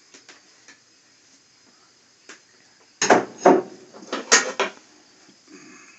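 Kitchen dishes and utensils clattering: a few faint ticks, then a quick run of about half a dozen loud knocks and clinks between three and five seconds in, as the emptied glass mixing bowl is put down by the skillet.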